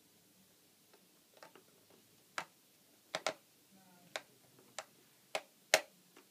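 A run of sharp, irregular clicks and taps, about seven over four seconds, the loudest near the end: small hard parts and tools being handled while a laptop is opened up.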